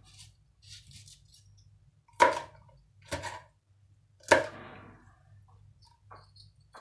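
Kitchen knife chopping hot green peppers on a wooden cutting board: three sharp chops about a second apart, with faint light taps between them.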